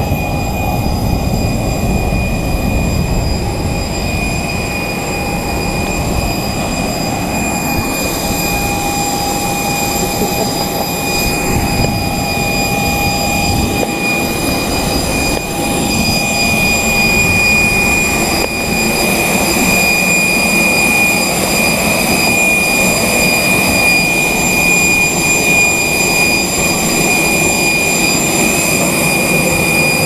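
Steady high turbine whine over a continuous rush from a parked jet airliner, getting a little louder in the second half as the aircraft is approached.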